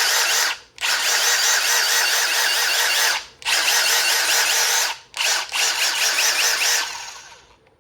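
Milwaukee M18 Gen 3 impact driver's brushless motor whining at no load in quick trigger pulls, five runs with short breaks between them. The last run winds down over nearly a second instead of stopping sharply, the hot motor's electric brake not catching, which the owner puts down to a characteristic of the 2853-20.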